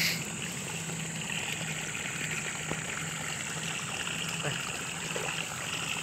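Water trickling and running steadily through a small channel and a wet mesh net.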